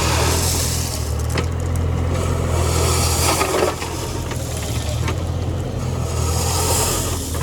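Mini excavator's diesel engine running steadily under load, with a couple of short knocks from the digging.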